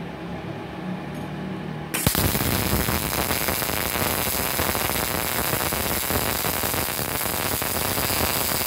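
MIG welding arc from a Multipro MIG/MAG 250 welder, struck suddenly about two seconds in and then crackling loudly and steadily as the wire feeds into the weld. A steady hum is heard before the arc starts.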